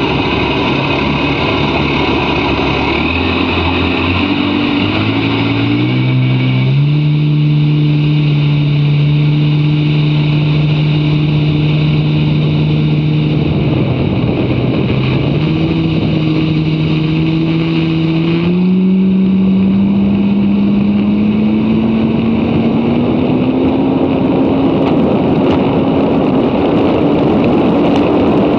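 Jet ski engine running hard under full throttle, its pitch climbing in steps over the first several seconds, then holding high, dipping briefly about halfway and rising slowly again toward the end, over heavy wind and water rush.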